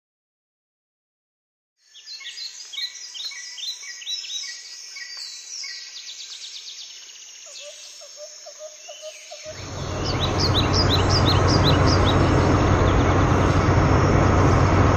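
Birds chirping, starting about two seconds in. Past the halfway point the steady engine sound of a cartoon off-road buggy comes in loudly, with a low hum, and runs on under the birdsong.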